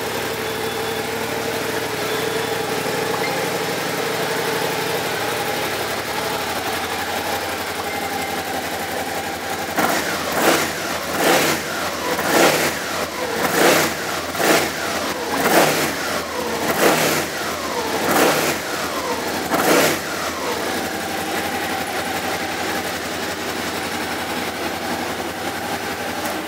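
Suzuki SFV650 Gladius's 650 cc V-twin engine on its stock exhaust, idling steadily just after start-up. About ten seconds in, the throttle is blipped about nine times over ten seconds, each rev rising and falling straight back, and then the engine settles to an even idle again.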